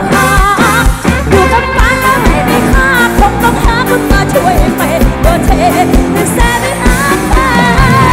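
Live band playing loud through a stage PA: a singer's melody over a full band, with a steady kick-drum beat about twice a second.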